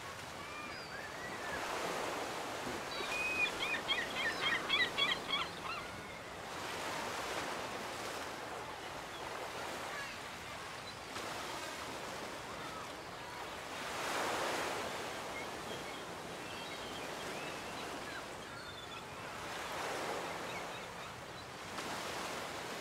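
Ocean waves washing in and drawing back, each swell rising and fading every few seconds. About three seconds in, a rapid run of short, high chirping calls lasts for about three seconds.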